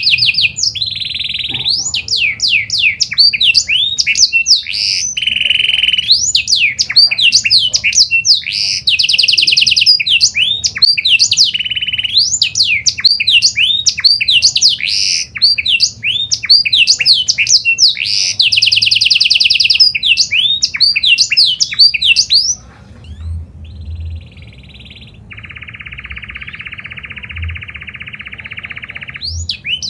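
Domestic canary singing: fast rolling trills mixed with quick rising and falling whistled sweeps, loud and nearly unbroken for about three quarters of the time. The song then drops much softer, ending in a lower, even rolling trill.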